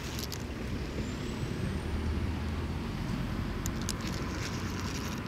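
Steady low outdoor rumble, with a few faint clicks about three and a half seconds in.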